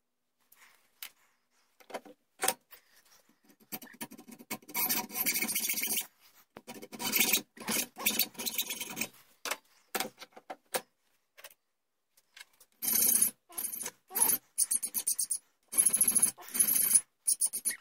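Hand tools working a piece of scrap brass held in a bench vise: a hacksaw rasping through it in runs of quick strokes, and near the end a hand file scraping across it, with short pauses between runs.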